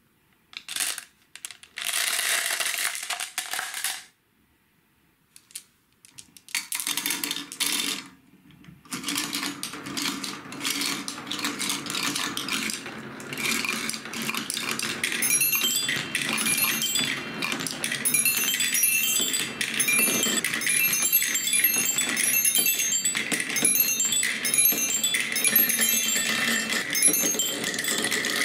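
Glass marbles poured from a jar clattering into a wooden Quadrilla marble run, then a long stream of marbles rolling and clicking down its wooden spiral tracks and blocks. About halfway in, bright tinkling notes start repeating in a steady pattern over the clatter.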